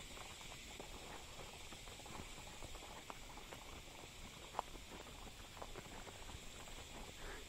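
Faint hoof falls and tack creaks of horses walking on a soft dirt trail: a run of small irregular clicks and rustles, with one sharper click about four and a half seconds in.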